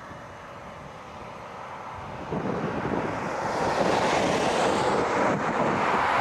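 A vehicle approaching on the highway: its tyre and road noise comes in about two seconds in and grows steadily louder.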